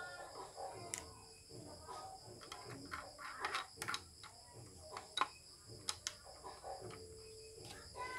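Faint clicks and knocks of plastic parts as a ring light and its phone-holder mount are handled and fitted together, the sharpest a few seconds in. A steady high-pitched whine runs underneath.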